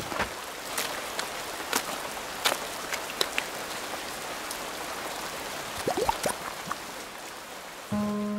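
Steady rain hiss with scattered sharp droplet ticks. About six seconds in come a couple of short squeaky rising sounds, and near the end sustained music notes begin.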